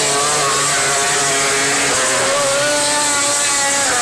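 MotoGP racing motorcycles at speed: several high engine notes rise and fall over one another as the bikes accelerate and shift, over a steady hiss.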